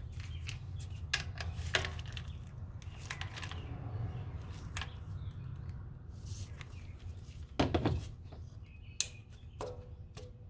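Scattered clicks and clanks of hand tools working on the engine's spark plugs and ignition coils, with a louder clatter of knocks about three-quarters of the way through, over a steady low hum.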